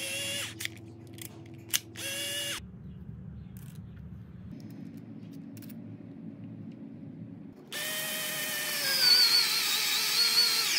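Worx SD Slide Driver cordless screwdriver's motor spinning briefly twice. Then it runs for about three seconds driving a screw into wood, its pitch sagging and wavering as the screw bites in.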